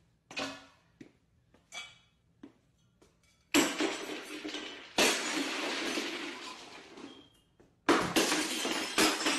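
Faint short clicks, then about three and a half seconds in a series of four loud sudden crashes, each followed by a second or more of noisy clatter.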